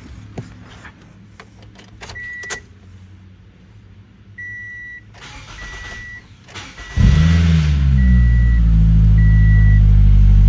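Toyota Camry's engine cranked by the starter and catching about seven seconds in, then idling steadily and loudly. Before the start, a dashboard warning chime beeps repeatedly, about once every second.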